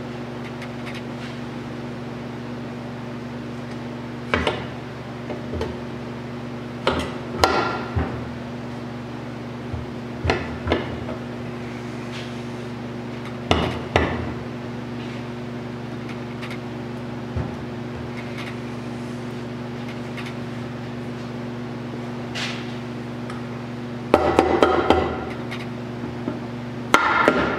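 Soft-faced mallet tapping a transmission case half down to seat it over the shafts, in quick runs of taps near the end. Earlier come a few scattered knocks as the case is pushed and shifted into place.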